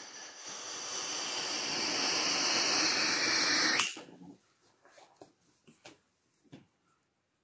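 A rushing hiss that swells louder for about four seconds, then cuts off suddenly with a click. A few faint short scratches follow.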